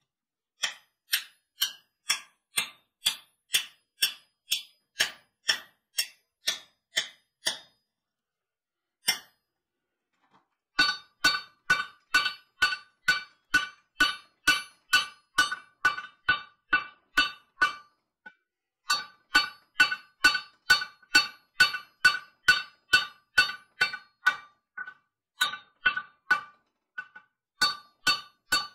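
Hand hammer striking hot steel at about two blows a second: a first run of blows on a drift set in the punched eye of a rounding-hammer head, then after a short pause a longer steady run forging the head on the drift, each of these blows ringing with a clear metallic tone.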